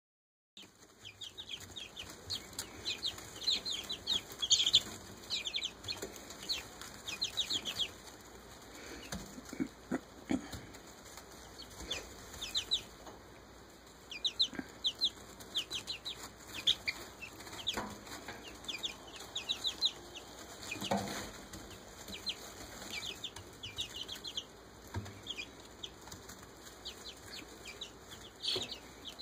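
A brood of young chicks peeping: runs of quick, high, downward-sliding cheeps, many in rapid series, with short pauses between runs.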